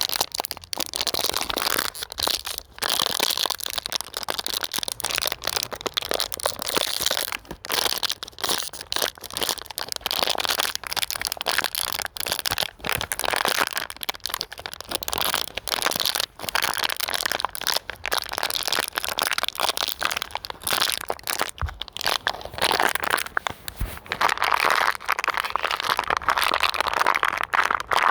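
Plastic bottle being crinkled and crushed by hand: dense, irregular crackling and crunching that keeps on with brief pauses.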